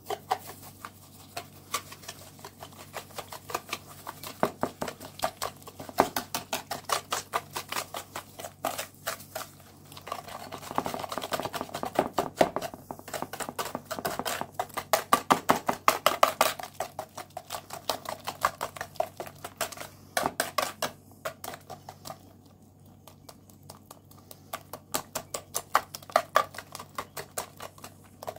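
Wire balloon whisk beating eggs and sugar by hand in a plastic bowl: a rapid, continuous clicking and rattling as the wires strike the bowl. The strokes are loudest in the middle and softer near the end.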